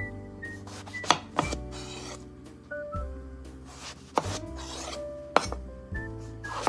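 Kitchen knife slicing an eggplant lengthwise into quarters on a cutting board: the blade rasps through the skin and flesh and knocks against the board about five times, over soft background music.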